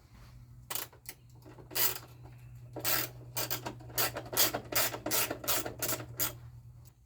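Ratchet wrench with a 10 mm socket loosening a bolt on a mower: a run of short ratcheting rasps, about three a second, over a steady low hum.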